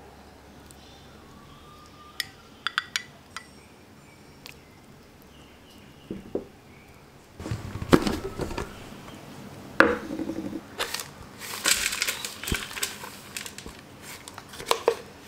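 A crumbly blended date, nut and seed mixture being handled: light clicks at first, then from about seven seconds in irregular scraping and crunching with sharp knocks and clinks as it is worked out of the jar and onto a plastic-lined tray.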